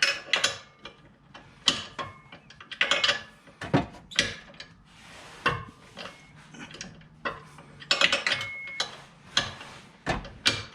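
Hand ratchet and wrench clicking and clattering in irregular short bursts, with tools knocking against metal, as the bolts of a differential brace are tightened.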